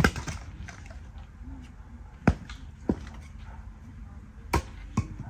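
Hatchet splitting firewood: five sharp chops at uneven intervals, the strongest at the start and about two seconds in.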